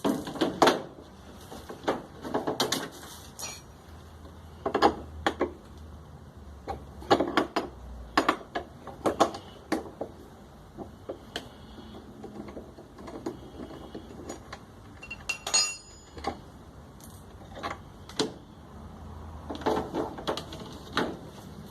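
Hand tools clinking and tapping on the washing machine's metal and plastic parts during disassembly: irregular sharp clicks and knocks, some in quick clusters.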